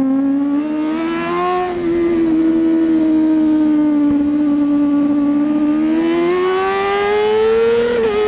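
Kawasaki ZX-6R 636 inline-four engine at high revs, heard from on board: it holds a fairly steady note through a corner, then rises in pitch as the bike accelerates out onto the straight, with a brief dip near the end that marks a quick upshift. A rush of wind runs underneath.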